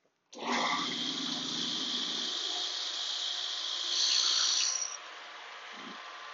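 Shopsmith drill press motor starting up about a third of a second in and running with a steady whine, as a brad point bit spins. Around four seconds in the bit bores into the wood, louder and sharper for under a second, then the sound drops to a quieter steady running.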